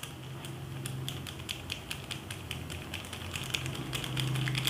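Small plastic sachet of ground pepper being shaken and tapped, making irregular light clicks and crinkles, several a second. A faint steady low hum runs underneath.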